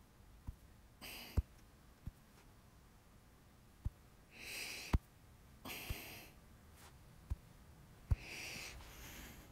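Scattered fingertip taps on an iPad touchscreen, about eight faint clicks, with a few short breathy puffs of breath between them.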